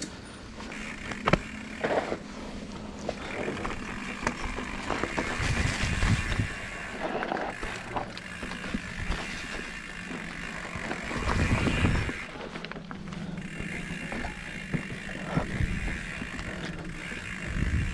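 Mountain bike's rear freehub ratchet buzzing steadily while the rider coasts, with a couple of short breaks. Under it are tyre noise on the leaf-covered dirt trail, rattles and knocks from the bike over bumps, and a few low rumbles.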